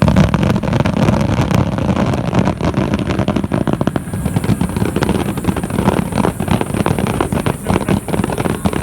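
Fireworks display going off in a dense, continuous barrage of rapid, overlapping bangs.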